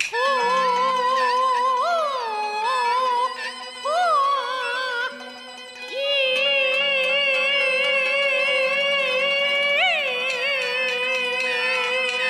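Peking opera aria in the high female dan voice, holding long notes with sliding, wavering ornaments over instrumental accompaniment. It dips quieter about five seconds in, then takes up a new long held note.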